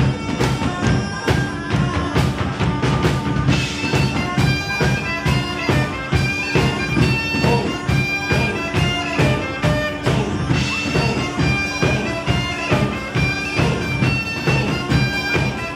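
Several bagpipes playing a melody over a steady drone, backed by large drums beating a fast, even rhythm.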